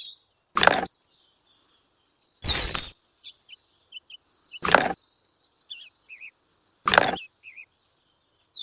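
Birds chirping and trilling in the background, broken about every two seconds by a loud short burst of noise.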